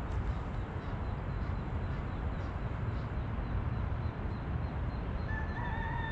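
Steady low outdoor rumble, like distant traffic, with a faint regular ticking, and near the end a steady high tone held for over a second.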